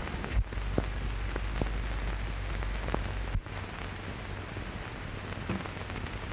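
Steady hiss and crackle of an early sound-film soundtrack, with a few scattered pops and a low hum that cuts off suddenly about halfway through.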